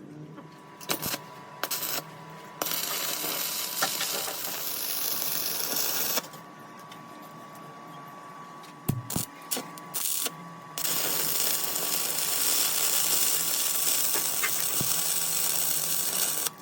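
A power tool running in two long spells, with a steady thin whine under it and a few sharp metal clicks and knocks in between.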